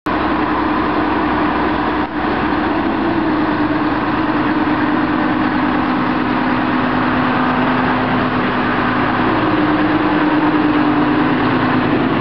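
Diesel shunting locomotive Stanlow No. 4's engine running steadily as it hauls passenger coaches slowly along the track, its note shifting slightly a few times.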